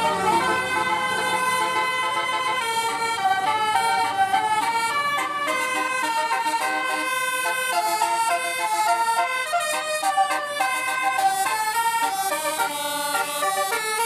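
Bus telolet horn, a set of sequenced air-horn trumpets, playing a tune of quick stepped notes, heard from inside the bus cabin.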